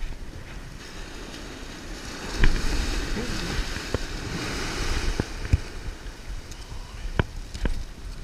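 Shore surf washing in around the angler's feet, a wave's hiss swelling through the first half and fading again, over a low wind rumble on the microphone. A few sharp clicks and knocks, one every second or so, come from the treble-hooked needlefish plug being worked out of a small striped bass's mouth.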